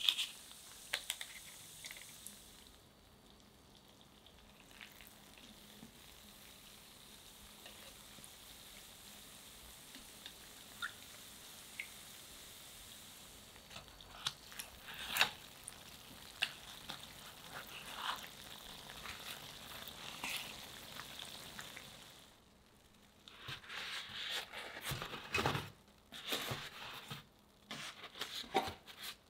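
Yeast donuts deep-frying in a pan of oil, a steady light sizzle with occasional small taps as chopsticks turn them. About 22 seconds in the sizzle stops, and a run of clicks and taps follows as the fried donuts are lifted out and set on a metal wire rack.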